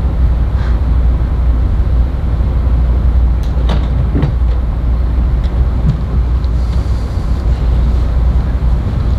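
A steady low rumble, with a few faint sharp knocks about four seconds in.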